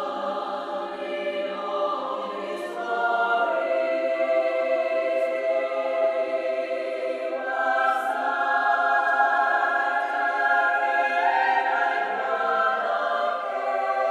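Women's choir singing unaccompanied in five voice parts, high in the range, on the words "glory was not arrayed like one of these", in sustained, swelling chords.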